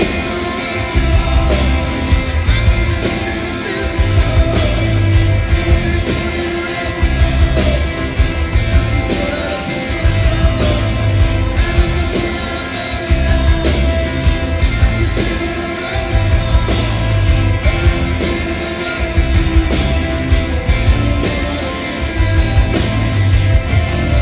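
Rock band playing live: electric guitars, bass and drums, with a male lead vocal.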